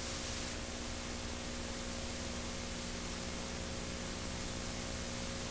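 Steady hiss with a faint low hum underneath, the background noise of an old VHS tape recording.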